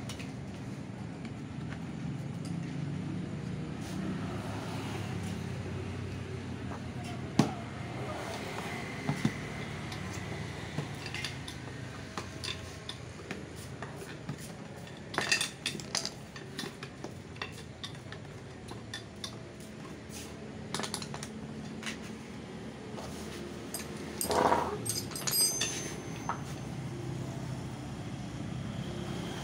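Hand tools clinking and clattering against metal parts of a scooter's rear wheel, as scattered sharp clinks with a few louder clusters, over a steady low hum.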